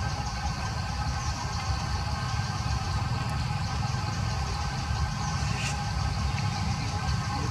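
Steady outdoor background: a constant low rumble with a continuous high-pitched hum or buzz above it, and no distinct event.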